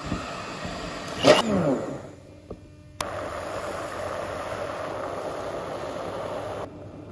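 Liquid fizzing and foaming in a stainless steel pot as mustard seeds are tipped in, a steady hiss that starts suddenly about three seconds in and cuts off shortly before the end. About a second in there is a brief loud sound that falls in pitch.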